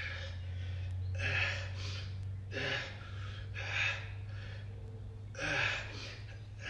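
A man breathing hard during exercise, with about five loud, breathy exhales a little over a second apart, over a steady low hum.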